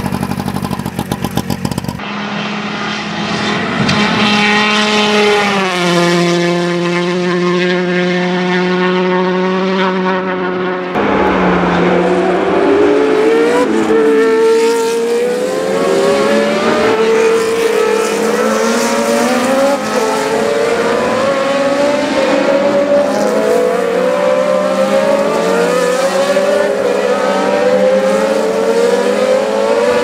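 A Trabant's two-stroke engine running as the car pulls away. Then an engine held at steady revs, dropping to a lower steady pitch partway through. From about eleven seconds in, several Formula 1 cars accelerate away down a straight, their engine notes rising and dropping again and again as they shift up through the gears.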